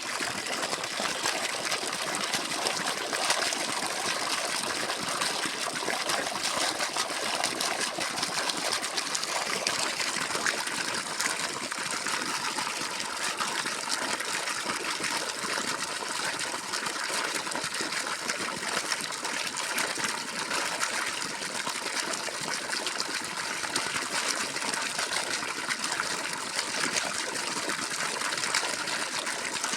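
Water gushing steadily from a borewell pump's outlet pipe, a continuous even rush with no breaks.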